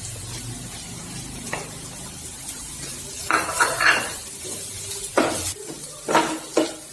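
A spatula stirring and scraping in a non-stick frying pan of onions sautéing in coconut oil as spice powders are mixed in, with a light sizzle. There is a soft click about a second and a half in, and several short scraping strokes in the second half.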